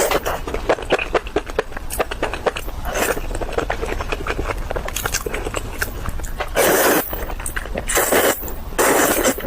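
Close-miked eating sounds of spicy Korean food: rapid wet chewing and mouth clicks, broken by several louder slurps about three seconds in and again near the end.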